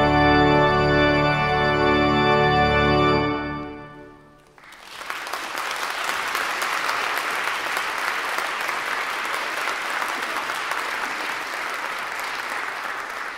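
Church organ holding a loud final chord over a pulsing bass, cut off about three seconds in and dying away in the room's reverberation. Then audience applause starts and runs on steadily.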